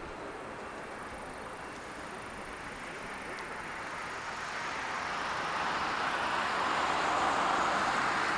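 Jet airliner engines, a steady noise that swells louder from about halfway through and is loudest near the end as the aircraft comes closer.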